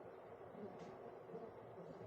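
52-inch Elmark EL9803 ceiling fan running: a faint, steady hum and rush of air.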